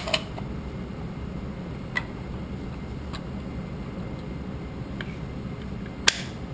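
A few sharp, separate clicks of plastic parts, from a plastic coffee cup's lid, rod and mesh basket being handled as the basket is pulled up to latch into the lid; the loudest click comes about six seconds in. A steady low hum runs underneath.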